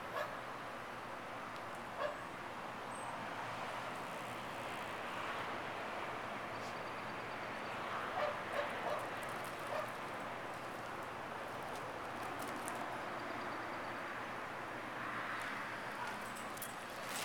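A few short dog barks over steady background noise.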